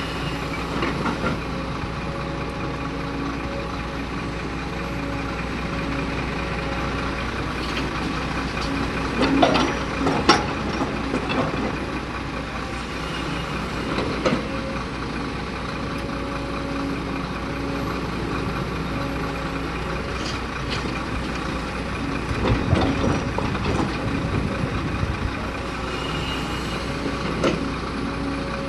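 Heavy diesel engine of a hydraulic excavator running steadily, with clanks and thuds about ten and fourteen seconds in and a longer stretch of clatter past twenty seconds.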